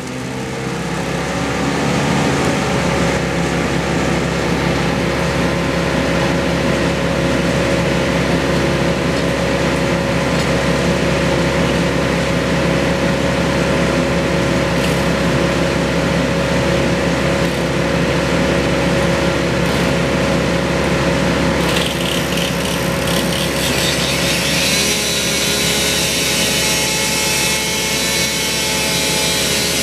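Gas engine of a wood-cutting machine running steadily under load while cutting wood. It turns brighter and harsher about two-thirds of the way through.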